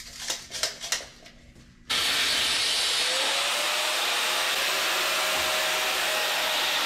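A few light clicks and knocks of handling, then a power cutting tool starts abruptly about two seconds in and runs as a loud, steady hiss, cutting a length of the old ladder rack to size.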